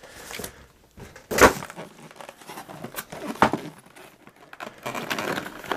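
Cardboard packaging being handled: rustling with a few sharp knocks and scrapes, the loudest about a second and a half in.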